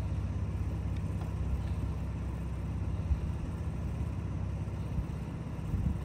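A four-wheel-drive vehicle's engine running with a steady, low note, with a few short knocks about three and five seconds in.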